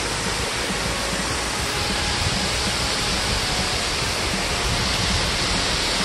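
A waterfall: falling water rushing steadily, a loud, even roar.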